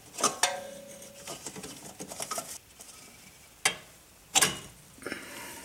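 Metal clicks and clinks of a brake spring tool and steel return springs being worked off the anchor pin of a rear drum brake, with a short metallic ring near the start and two sharper clacks later on.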